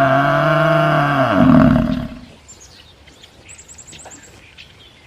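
A large animal's long, low call that falls in pitch and stops about two seconds in, followed by a quick run of faint, high bird chirps.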